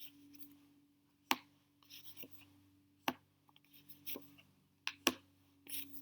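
A few sharp clicks a second or two apart, with light scratchy rustling between them, over a faint steady low hum.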